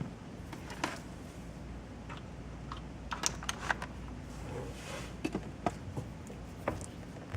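Scattered light clicks and taps of small hard objects being handled, most of them in the middle stretch, over a steady low hum.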